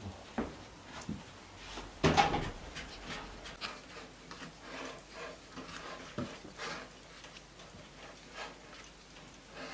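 Hands rolling balls of dough and setting them down in a floured metal tray on a wooden table: soft rubbing and light taps, scattered through, with one louder knock and scrape about two seconds in.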